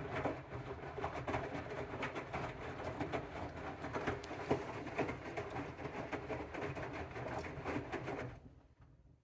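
AEG washing machine drum turning wet rags in a 95° cotton boil wash: a busy clatter and sloshing over the motor's low hum, which stops suddenly about eight seconds in as the drum pauses.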